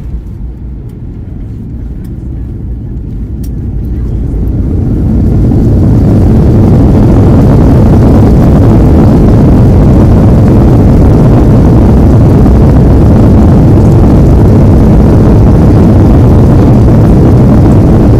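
Boeing 737-800's CFM56-7B engines spooling up into reverse thrust after touchdown: the rumble swells over the first few seconds into a loud, steady roar that holds to the end.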